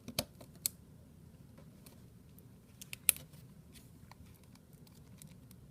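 Light plastic clicks and taps as the Galaxy S7 Edge's inner plastic covers are handled and fitted back into the phone: two near the start and the sharpest about three seconds in, with fainter ticks between.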